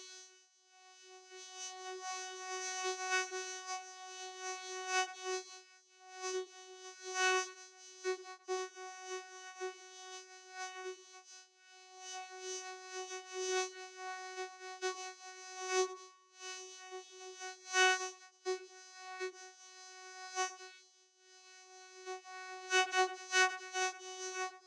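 Vocoder effect: a single fixed-pitch, overtone-rich synthesizer tone whose loudness swells and drops irregularly in short pulses, with a few stronger bursts near the end.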